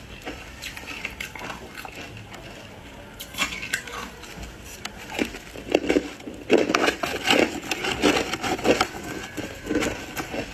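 Close-miked crunching and chewing of hard ice coated in matcha powder: irregular crackling bites, lighter at first and louder and denser from about halfway in.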